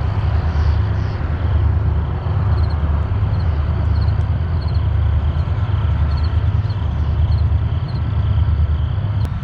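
Towboat diesel engines pushing a barge on the river: a steady, heavy low rumble that throbs evenly and does not let up.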